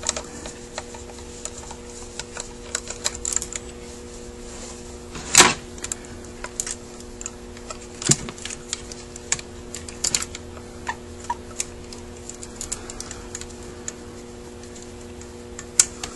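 Scattered light metallic clicks and taps of a screwdriver and fingers working the choke linkage loose on a Rochester Quadrajet carburetor, with sharper clicks about five and eight seconds in. A steady low hum runs underneath.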